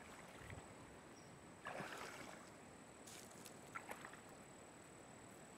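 Very faint sloshing of river water around a person wading and handling a wet cast net, with a couple of soft swishes about two and three seconds in.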